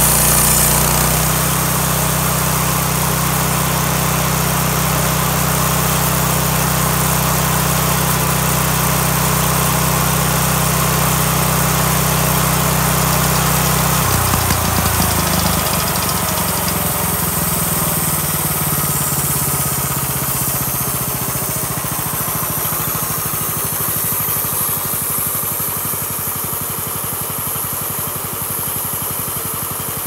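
An engine running steadily. About halfway through its note breaks and drops lower, and it runs on a little quieter.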